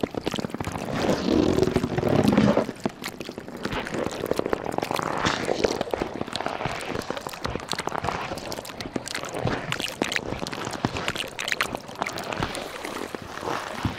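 Freezing sea ice crackling and clicking in the water, a dense patter of many small ticks. A louder rush of water-like noise fills the first two and a half seconds.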